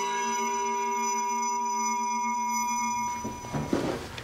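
A steady held electronic tone, several pitches sounding together with one strong beep-like note, cutting off suddenly about three seconds in. A few faint soft clicks follow.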